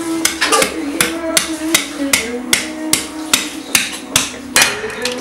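Sharp knocks at a steady, even pace, about two or three a second, with sustained tones underneath that change pitch like a tune.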